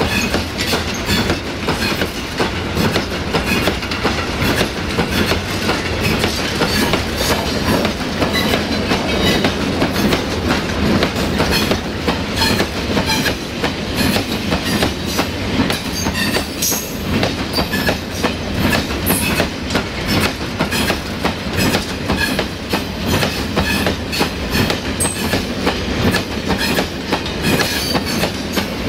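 Freight train wagons passing at speed: a steady rumble with the quick, continuous clatter of wheels over rail joints.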